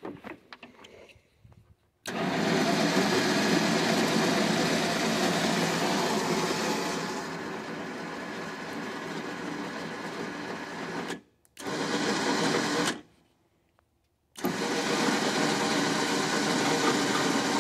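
Harbor Freight electric winch reeling in its line under load as it drags a log: the motor and gears run steadily, stop twice briefly about two-thirds of the way through, then start again.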